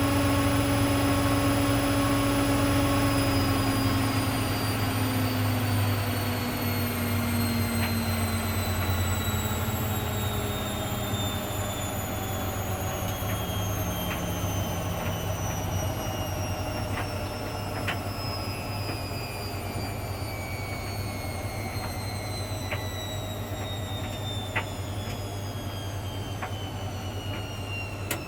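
Hoover Dynamic Next washing machine winding down from a spin: the motor whine falls steadily in pitch as the drum slows, over a low hum, with scattered light clicks.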